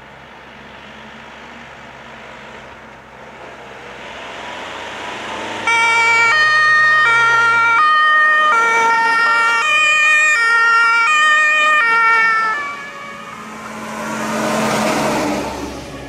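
German two-tone emergency-vehicle siren (Martinshorn) on an ambulance convoy, alternating between two pitches for about seven seconds. It cuts in suddenly about six seconds in, over the engine and tyre noise of the vehicles driving past. After the siren stops, a vehicle passes close near the end with a rush of tyre and engine noise.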